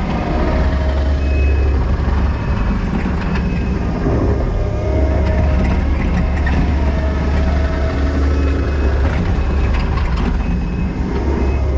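Kubota SVL90-2 track loader's diesel engine running steadily under load as the machine tracks back and forth, compacting gravel backfill with its tracks.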